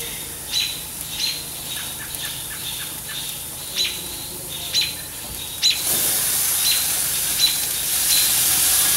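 A bird chirps over and over, a short falling note about once a second. About six seconds in, a loud steady sizzle starts as the marinated striped bass fillet hits the hot gas grill grate.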